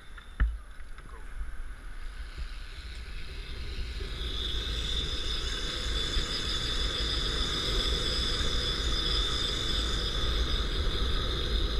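Zipline trolley pulleys running along the steel cable, a whirring hiss that builds steadily from about four seconds in, over wind rumble on the microphone. A single knock comes just after the start.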